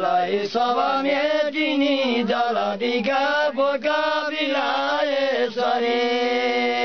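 An unaccompanied elderly man's voice chanting a Nepali shlok in a melodic recitation. The chant settles into one long held note near the end.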